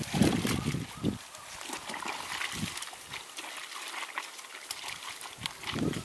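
Clothes being hand-washed in a plastic basin of soapy water: a slosh as the cloth is plunged and worked at the start, then water trickling and dripping off the lifted cloth, with another slosh near the end.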